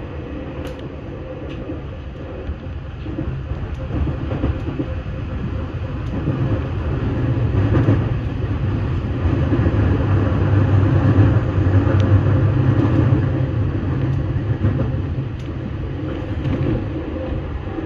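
JR 211 series electric train running and slowing down, heard from the driver's cab: a steady rumble of wheels and rails, louder in the middle then easing off, with a faint steady hum and occasional light clicks.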